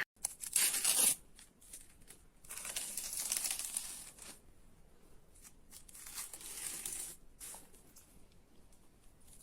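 Rustling, crinkling noises in three bursts of a second or two each, with quiet gaps between them.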